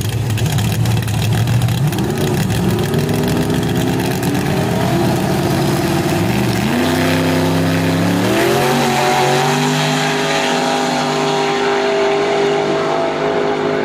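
Drag-race engines, a nitrous big-block Chevy II Nova against a Fox-body Mustang, running loud on the starting line. They rev up in steps, then pull hard at full throttle as the cars launch, holding a high, steady note.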